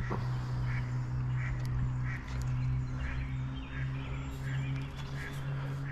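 An animal call repeating about every three-quarters of a second over a steady low hum.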